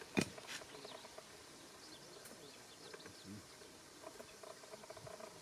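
One sharp knock just after the start, the last of a series of strikes. It is followed by faint outdoor ambience with thin, high chirps, and from about four seconds in a rapid pulsing insect trill.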